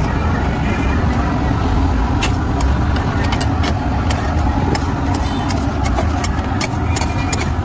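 Liver frying in masala on a large tawa, sizzling over a loud, steady low rumble, with scattered sharp clicks and crackles that come more often after about two seconds in.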